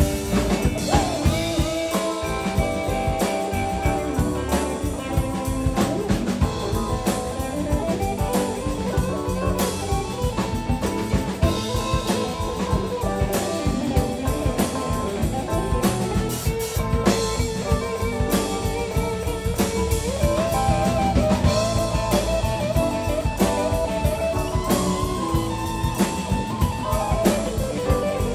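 Live rock/blues band playing an instrumental passage: electric guitar carrying the lead line with held, bending notes over drum kit, bass guitar and keyboards.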